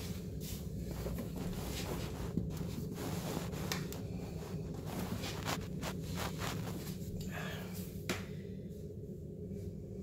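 A toilet supply line's shut-off valve being gripped and turned by hand to close off the water: a run of short scrapes, rubs and clicks over a steady low hum.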